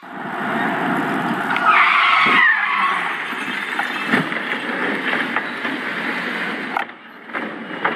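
Car tyres squealing in a skid for about a second, about two seconds in, then a crash impact as a car is knocked onto its side, with another knock about four seconds in.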